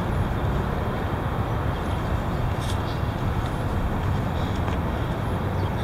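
Strong gust of wind buffeting the microphone: a steady, heavy rumble of wind noise.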